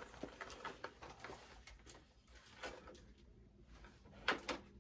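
Faint rustling and light clicks from handling a small handbag, with a short burst of sharper clicks near the end.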